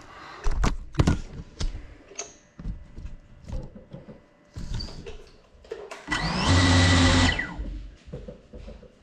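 Several knocks and scrapes, then a small FPV drone's motors and propellers whirring in one loud burst of about a second, a little past the middle, before cutting off.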